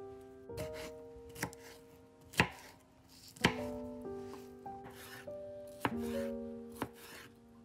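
Chef's knife cutting a red bell pepper on a cutting board: a series of sharp knocks as the blade meets the board, at an uneven pace. Soft background music with sustained notes plays underneath.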